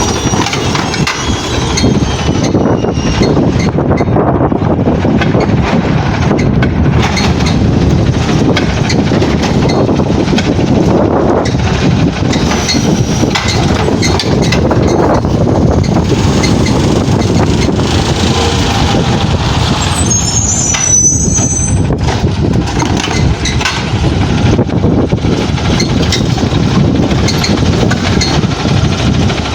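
Garbage truck running close by, with a brief high brake squeal about twenty seconds in, under heavy wind buffeting on the microphone.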